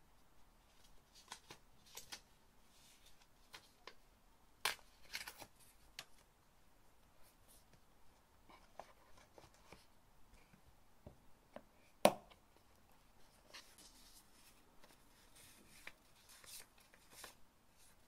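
Paper handling: the leaves of a tiny paper booklet flicked and rustled, and paper pieces shifted in a cardboard box, as scattered soft rustles and taps. A sharp tap stands out about twelve seconds in.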